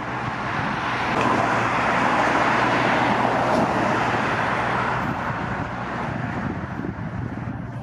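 A road vehicle passing by, its tyre and engine noise swelling to a peak about three seconds in and then fading away, over a steady low hum.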